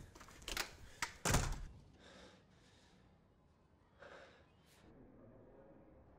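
Furniture knocked as a man gets up abruptly: two sharp knocks and then a heavy thud about a second and a half in, followed by quiet room tone with a brief soft breath-like noise about four seconds in.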